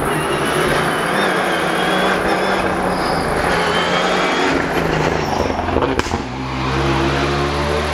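Rally car engine running hard as the car comes along the stage at speed, its pitch shifting with the revs, with a sharp crack about six seconds in.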